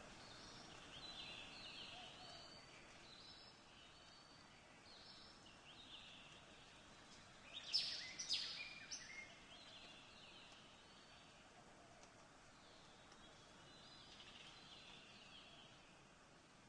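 Faint birdsong: scattered short chirps and whistles over a soft background hiss, with a louder flurry of calls about eight seconds in.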